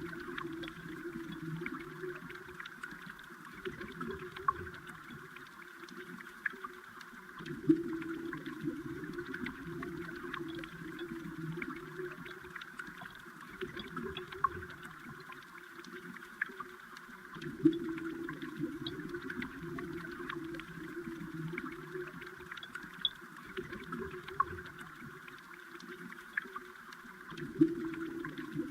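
Moving water heard underwater: a steady bubbling rush with many small scattered clicks and a louder knock about every ten seconds.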